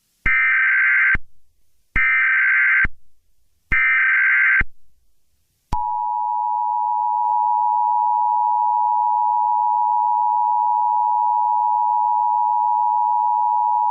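Emergency Alert System tones: three short bursts of digital data tones (the SAME header), each about a second long with a second's gap between them. About a second later the steady two-tone EAS attention signal starts, holds for about eight seconds and cuts off. This is the sequence that opens an emergency alert broadcast.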